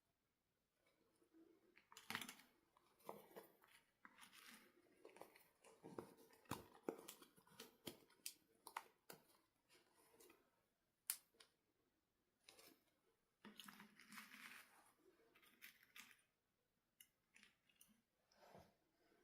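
Quiet handling of a boxed doll and its packaging: scattered sharp clicks and short rustles of plastic and cardboard.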